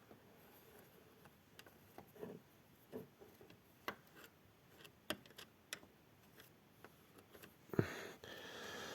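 Faint, scattered clicks and taps of hands working grease into a car door's hinges. A louder knock comes near the end, followed by a brief soft rustle.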